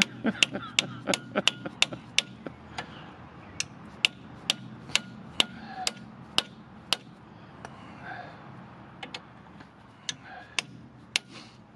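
A long run of sharp metallic taps, like light hammer blows driving a brake caliper pin home. The taps come quickly at first, then about two a second, and then thin out near the end.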